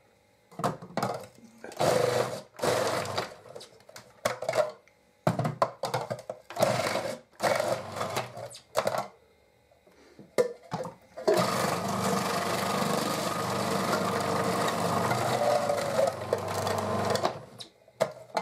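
Food processor chopping onions, carrots and celery: a run of short on-off bursts through the first half, then running steadily for about six seconds before stopping.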